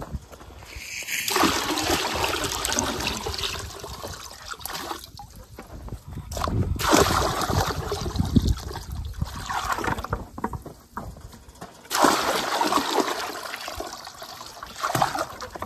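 Water poured from a plastic bucket splashing and sloshing into a partly filled livestock stock tank, in three spells of pouring with short pauses between, topping off the cattle's drinking trough.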